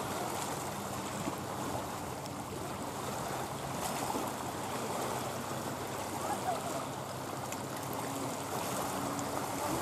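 Steady outdoor noise of wind and lapping water on open water, with no distinct events.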